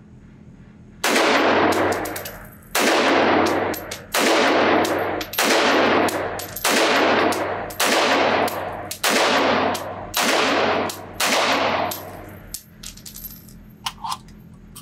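Nemo Arms Battle Light Rifle, a muzzle-braked AR-15 in 6mm ARC, firing nine aimed semi-automatic shots about one every second and a quarter. Each loud, high-pitched report echoes through an indoor range. A few light metallic clinks follow near the end.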